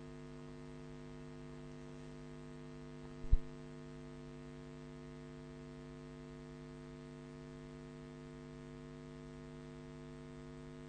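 Steady electrical hum, several tones held level, on an otherwise silent audio track. There is one short, sharp pop about three seconds in.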